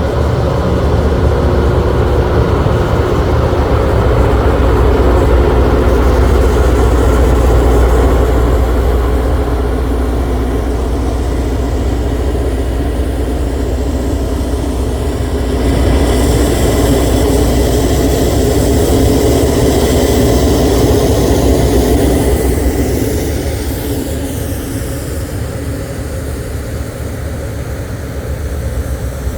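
Loram rail grinder working along the track: a heavy, steady diesel engine drone under a harsh grinding hiss from the stones on the rails. The hiss swells about halfway through, and the sound fades somewhat near the end as the grinder moves away.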